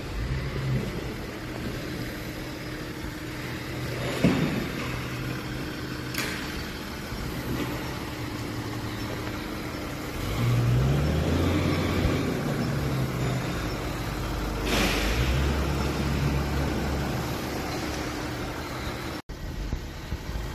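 A motor vehicle's engine running with a low, steady hum that swells louder for a couple of seconds about ten seconds in and again around fifteen seconds, with a few sharp knocks over it.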